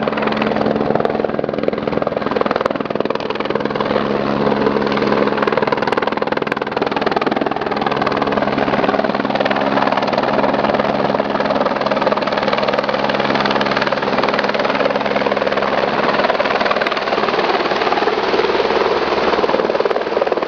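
Helicopter coming in to land close by, its rotor and turbine running loud and steady, with a low pulsing hum under the rush of the blades.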